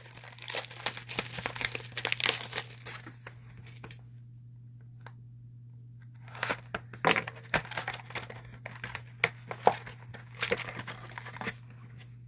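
Wrapping and card-pack foil crinkling and tearing as a sealed box of hockey cards is unwrapped and its packs pulled out. The handling stops for about two seconds in the middle, over a steady low hum.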